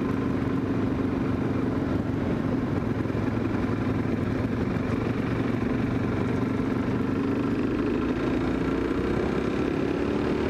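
Suzuki DR-Z400S's single-cylinder four-stroke engine running as the bike rides along. The engine pitch holds steady, then climbs over the last few seconds as the bike accelerates.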